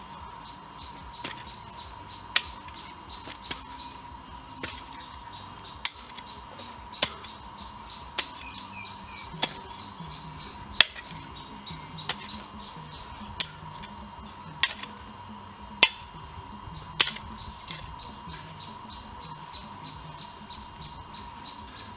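Long-handled hoe blade chopping into hard, dry compacted soil, one sharp strike about every second and a bit, about fourteen in all, stopping near the end.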